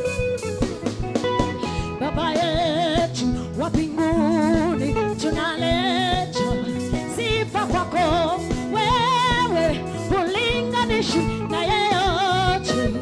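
Gospel worship song: a singer holding and bending long notes with heavy vibrato over a band's steady bass and chord accompaniment.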